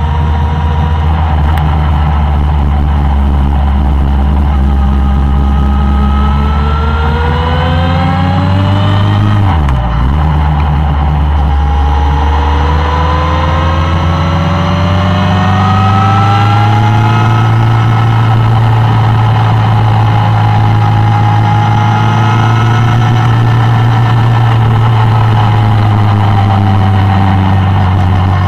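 Suzuki Bandit 1200's inline-four engine under way, rising in pitch as it accelerates, with a quick drop and recovery in pitch about ten seconds in as it shifts gear. It then pulls up again more slowly and settles to a steady cruise.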